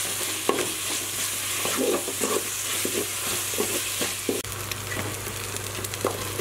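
Chopped onions and green chillies sizzling as they fry in a pot, with a steel ladle scraping against the pot in a run of short strokes as they are stirred. The scraping stops a little past halfway and the sizzling goes on.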